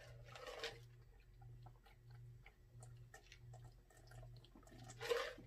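A man drinking from a large glass mug: faint swallowing gulps, soft and evenly spaced, with a breath at the start and another near the end.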